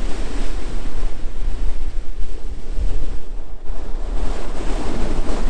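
Stormy surf breaking and washing up a pebble beach, with strong wind buffeting the microphone in a continuous low rumble.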